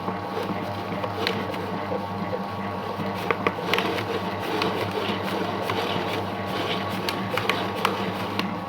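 Homemade cake-dough mixing machine running steadily with a motor hum, with irregular sharp clicks and knocks, more of them in the second half.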